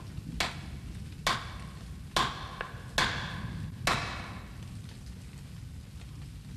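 A wood chisel is struck into timber with five evenly spaced sharp blows, a little under a second apart. The blows stop about four seconds in, over a steady low rumble.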